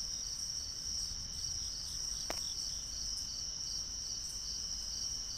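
Night insects, crickets, chirping: a continuous high trill with a softer pulsed chirp repeating about twice a second. A steady low rumble runs underneath, and a single short click comes a little over two seconds in.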